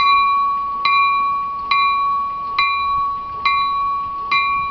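A train's warning bell ringing steadily as the train pulls out, struck about once a second with each clear ring carrying into the next, six strikes in all.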